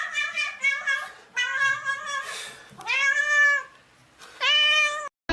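A domestic cat meowing repeatedly: several short meows, then a long drawn-out meow about three seconds in that rises and falls in pitch, and one more meow near the end.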